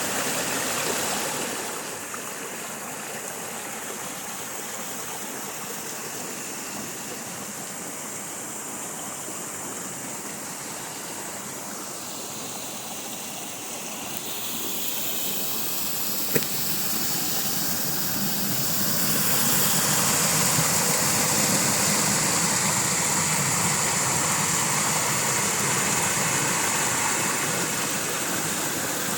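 Waterfall rushing steadily, its rush growing louder and brighter about two-thirds of the way through, with a single sharp click just past halfway.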